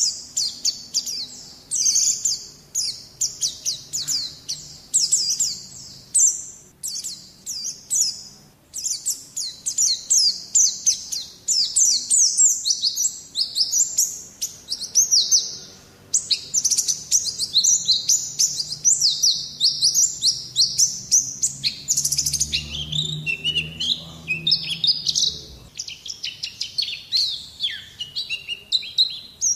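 White-eye (pleci) in full song: long, rapid runs of high, quick, downward-sliding chirping notes, broken by brief pauses.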